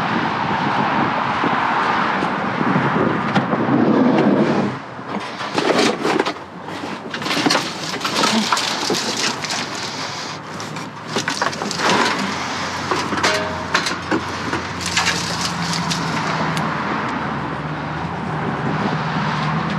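Debris being rummaged through in a dumpster: a run of irregular knocks and clatter over steady outdoor noise. A low steady engine hum comes in about three quarters of the way through.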